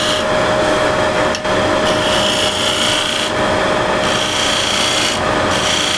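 Wood lathe running with a steady hum while a scraper carrying a screwdriver-rolled burr shear-scrapes the spinning wood. The scraping comes in about four passes, each about a second and a half long, with short breaks between them.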